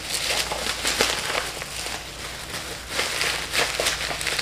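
Plastic bubble wrap crinkling and crackling in irregular bursts as it is handled and pulled off a small boxed microphone.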